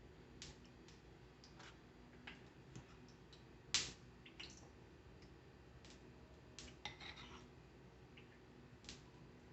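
Scattered light clicks and taps, about a dozen, with one sharper knock about four seconds in, over a faint steady hum.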